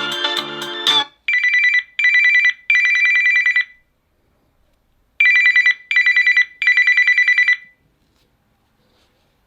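Samsung Galaxy Note 20 Ultra ringtone: a fluttering, bell-like telephone ring in two rounds of three bursts, two short and one longer. Before it, a guitar-based ringtone plays its last second and cuts off.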